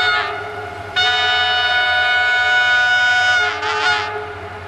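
Locomotive horn sounding as the train approaches: a short blast ending just after the start, then a long chord-like blast of about two and a half seconds that wavers and dies away near the end.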